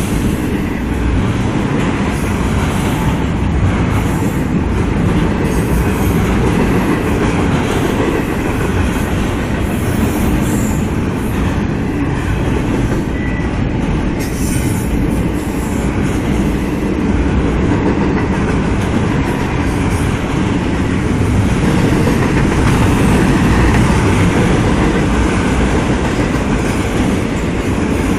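Norfolk Southern double-stack intermodal freight train's container well cars rolling past, a loud, steady rumble of steel wheels on rail.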